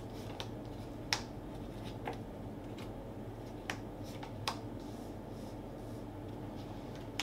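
Magic: The Gathering trading cards being handled and laid down one by one on a playmat: a handful of soft, irregularly spaced clicks and snaps as cards are slid off the stack and placed.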